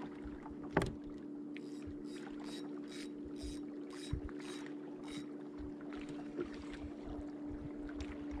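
Steady electric motor hum from a bass boat, with water against the hull. A single sharp knock comes about a second in, and faint light ticks come about twice a second for a few seconds.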